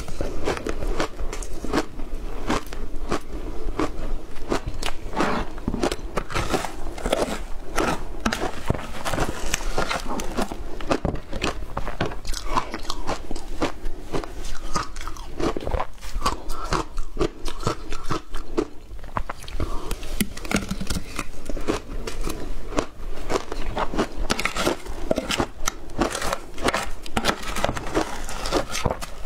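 Chewing and crunching of mouthfuls of matcha-flavoured shaved ice, picked up close on a clip-on microphone: a dense, continuous run of sharp crunches.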